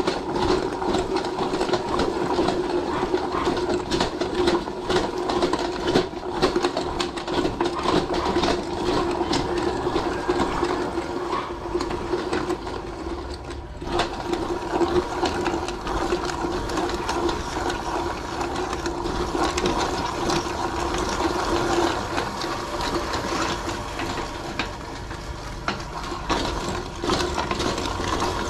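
Motor-driven meat grinder running steadily with a constant hum, crackling as it grinds raw chicken with its bones. It goes briefly quieter about halfway.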